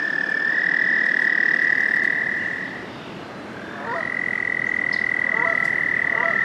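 American toads trilling: a long, steady, high trill stops a little before halfway. About a second later another trill starts, sliding up to pitch and holding. Faint short chirps sound in the background in the second half.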